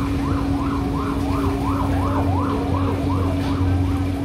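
A siren in a quick up-and-down yelp, about three rises and falls a second, fading near the end, over a steady low hum.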